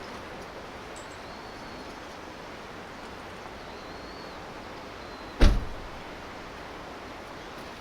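A single heavy thump about five seconds in, over a steady rushing noise like a flowing river. A few faint, thin high chirps are heard in the first half.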